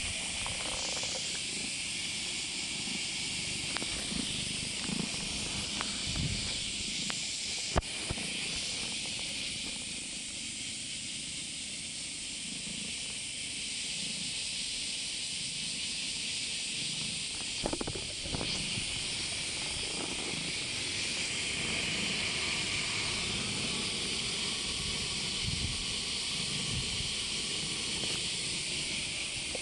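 A steady high hiss throughout, with scattered soft bumps and rustles as a black-and-white cat headbutts and rubs its head and fur against the camera; one sharp knock about eight seconds in.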